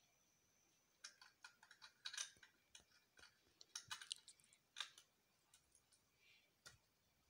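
Faint clicks and rattles of plastic Lego pieces being handled and pressed onto a Lego baseplate: a quick run of small clicks for about four seconds, then a few scattered ones.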